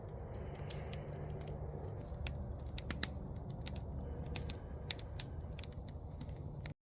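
Wood campfire crackling, with scattered sharp pops over a low steady background. It cuts off abruptly near the end.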